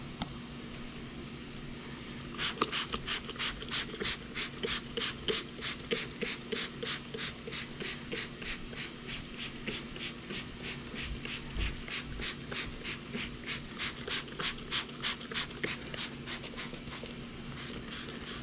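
Rhythmic scratchy swishing strokes, about three a second, start a couple of seconds in and stop near the end, over a steady low hum.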